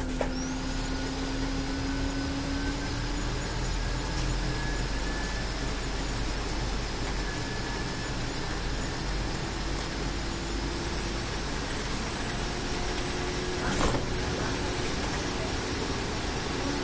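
Scania Citywide city bus heard from the driver's seat on the move: steady engine and road noise with a faint whine that holds one pitch at first, then slowly rises. A single sharp knock near the end.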